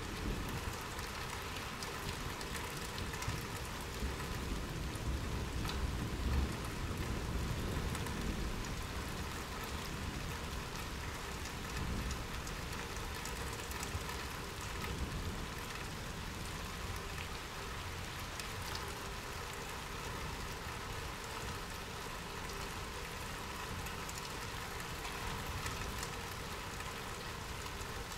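Steady rain falling, with many small drops ticking on surfaces. A low rumble swells and fades through the first dozen seconds.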